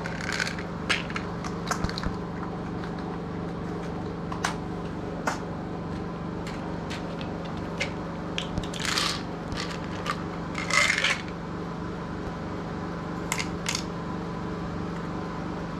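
Pills and capsules dropping with small clicks into the compartments of a pill organizer, in scattered sharp clicks with two longer rattles about nine and eleven seconds in.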